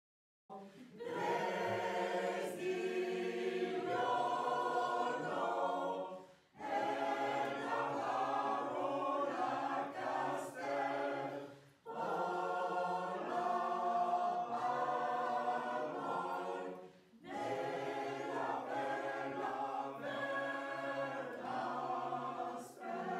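Choir singing, in four phrases of about five seconds each with short breaks between them.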